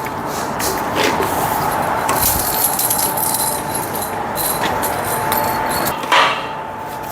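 Metal parts of a pipe-cutting torch carriage being handled, with a few knocks and clinks over a steady background hum.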